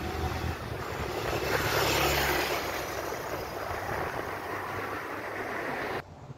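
Vehicle noise: a low engine hum with road and wind noise, swelling about two seconds in and cutting off abruptly near the end.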